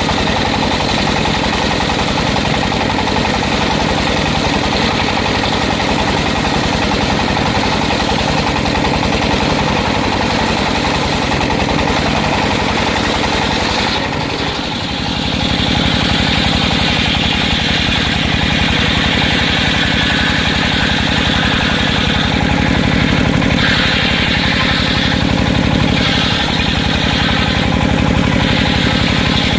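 Circular sawmill and its drive engine running steadily. About halfway through the sound dips briefly, then comes back with a stronger high-pitched whine.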